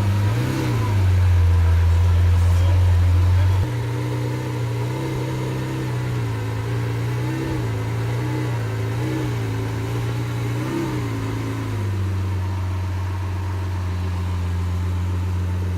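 Supercar engine idling with several short throttle blips, the pitch briefly rising and falling each time.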